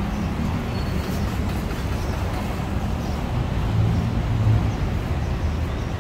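Steady road-traffic rumble from passing motor vehicles, with one engine's hum swelling louder about four seconds in.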